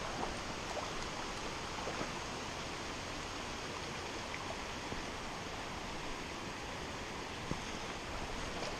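Shallow, rocky creek water rushing over riffles and stones: a steady, even rushing, with a few faint ticks.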